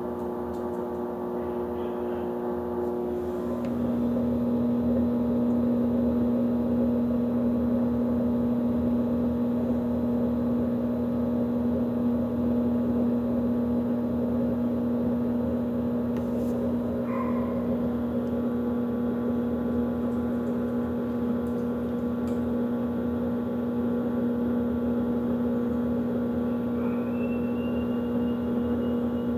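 Electrolux washing machine running with a steady motor hum and whine. About three and a half seconds in, the hum drops to a lower, louder tone and holds there. This is the machine noise the owner is concerned about.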